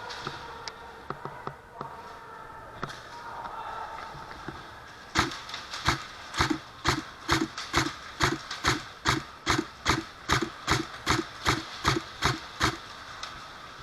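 A steady series of sharp knocks, about two to three a second, starting about five seconds in and stopping near the end, after a few faint scattered clicks.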